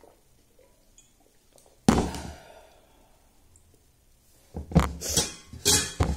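A steel drinking tumbler set down hard on a table once, about two seconds in, with a short metallic ring after the knock. From about four and a half seconds, a quick run of short squishing and scraping sounds as fingers work rice against a brass plate.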